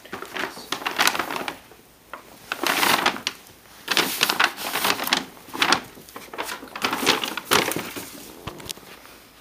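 Paper crinkling and rustling in irregular bursts, several a second, as the paper bag on the cat's back moves.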